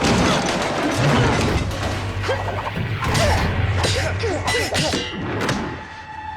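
Staged fight sound effects: a rapid series of blows and impacts landing, with a low music score droning underneath.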